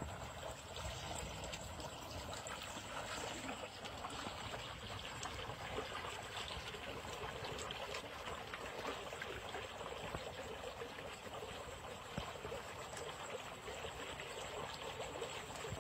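Water rushing and splashing steadily through a small channel.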